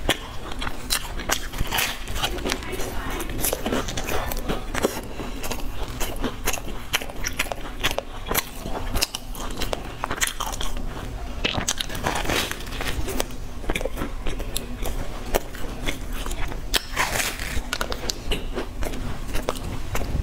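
Close-miked biting and chewing of a crisp, flaky croissant pastry: a steady run of sharp crackly crunches.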